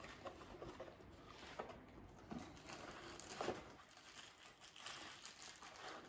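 Faint rustling and crinkling of a cardboard box and its wrapping as a new transmission filter is pulled out by hand, with a few sharper crackles.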